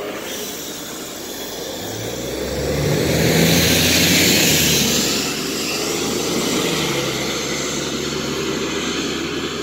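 New Flyer D40LF transit bus with a Cummins ISL diesel pulling away from the stop and accelerating past. The engine note rises as it speeds up, is loudest about three to five seconds in as the bus goes by, then runs steadier as it moves off.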